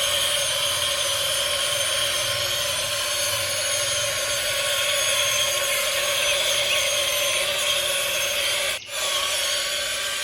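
A small electric motor whirring steadily with a high whine, cutting out for a moment near the end and then starting again.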